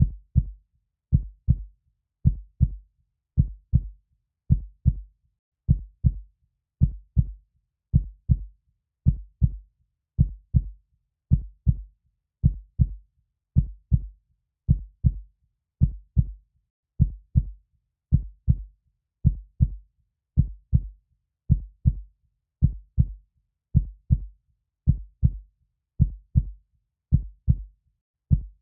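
Heartbeat: a steady, slow rhythm of deep double thumps (lub-dub), a little under one beat a second.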